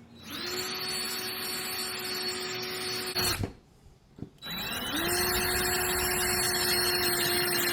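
Electric drill spinning up and running at a steady pitch while drilling out a sheared blade bolt in a lawn mower's crankshaft. It stops about three seconds in, and a second later starts again and keeps running.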